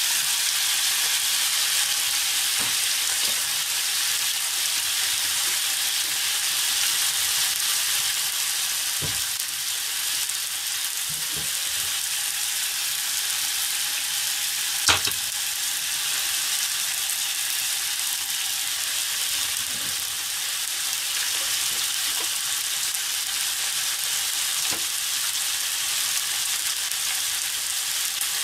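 White wine sizzling and bubbling steadily in a hot frying pan as it boils down with the pan drippings. A few faint knocks, and one sharp knock about halfway through.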